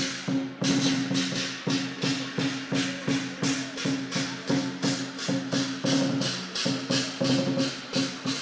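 Chinese parade percussion: sharp, evenly spaced cymbal clashes about three a second, over drumming and a steady low ringing tone.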